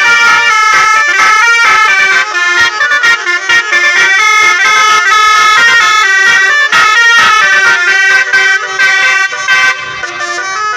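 Basuri 'telolet' musical air horns on Indonesian tour buses playing a fast, loud melody of changing notes with barely a pause, several horn tones sounding at once.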